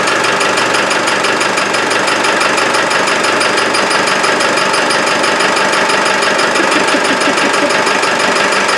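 Land Rover 300Tdi four-cylinder turbodiesel idling from a cold start, with a fast, even chirping tick running through it. It sounds chirpy, like a belt, though the owner has found the belt running true and cannot yet trace the cause.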